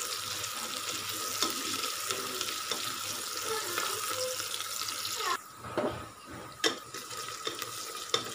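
Sliced onions and green chillies sizzling in hot oil in an aluminium pressure cooker while being stirred with a spatula. The sizzle drops off suddenly about five seconds in, followed by a few knocks of the spatula against the pot.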